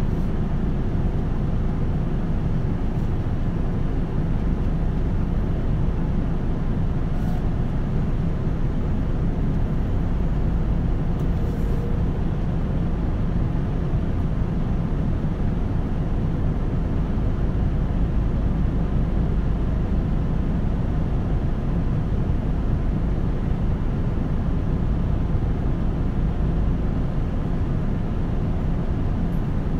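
Nissan Diesel KL-UA272KAM city bus heard from inside the cabin, its diesel engine and drivetrain running steadily with a low, even drone.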